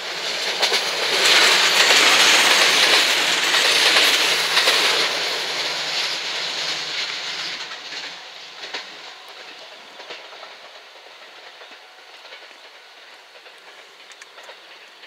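JR West 227 series three-car electric multiple unit passing close by, loudest about two to five seconds in, its wheels clattering over the rails, then fading away as it recedes, with scattered clicks from the wheels as the sound dies down.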